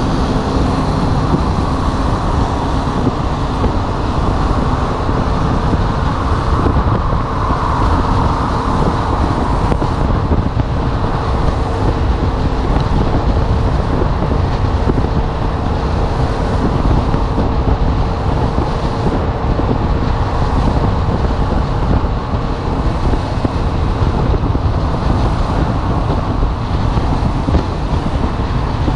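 Steady rush of wind on the microphone and road noise from a Yamaha MT-07 motorcycle cruising at around 70 mph, with the engine running evenly underneath and no gear changes or revving.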